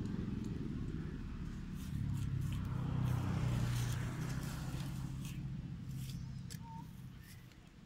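Low, steady engine hum of a motor vehicle, swelling about two seconds in and fading away near the end, with a few faint light clicks.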